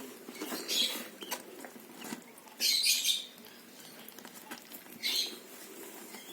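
Hand-fed bird chicks giving short, high-pitched squeaky begging calls for food, the loudest burst about two and a half seconds in and another near five seconds.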